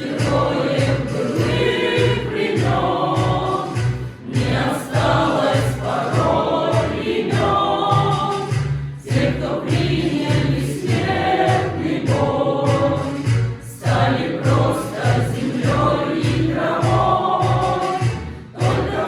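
Music: a song sung by a group of voices, like a choir, over a steady bass beat.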